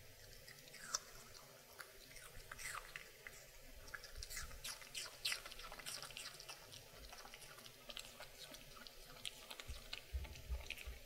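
Maltese dog chewing crisp apple pieces: a string of irregular crunches, thickest in the middle and picking up again near the end.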